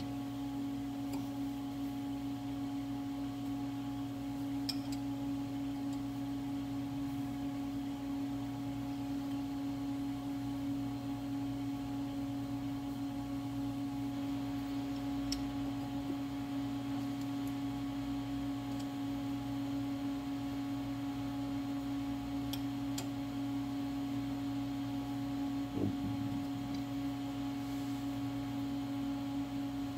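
Steady hum of a Haas CNC lathe standing idle, one even tone with a lower drone beneath it, broken by a few faint taps and clicks as the chuck is turned and adjusted by hand.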